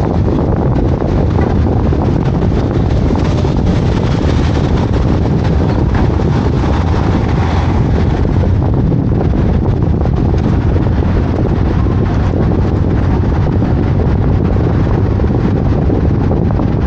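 Steady noise of a car driving, with wind buffeting the microphone.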